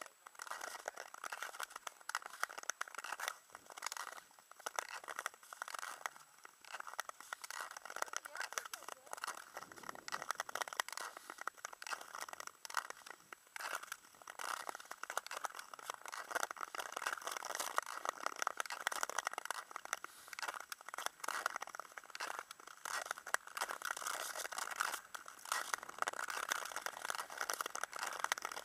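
Ice skate blades scraping over the ice as a skater strokes along: a continuous scraping hiss broken by many short crackles.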